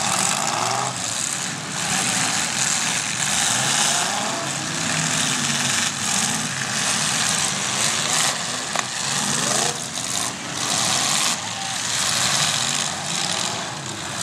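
Several demolition derby cars' engines running and revving together, their pitch rising and falling, with one sharp bang about nine seconds in.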